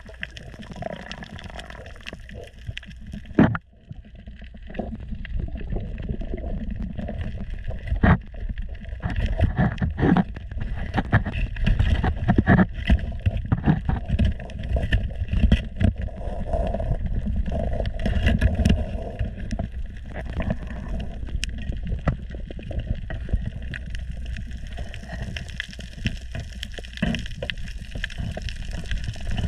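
Underwater sound heard through a submerged camera: a steady low water rumble with frequent sharp clicks and knocks, the loudest knock about three and a half seconds in.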